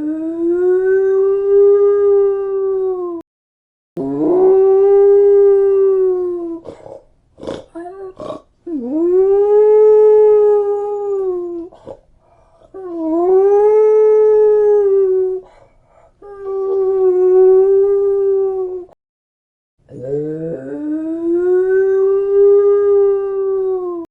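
A dog howling: six long, drawn-out howls in a row, each rising at the start and sagging slightly at the end, with a few short sharp sounds between the second and third howls.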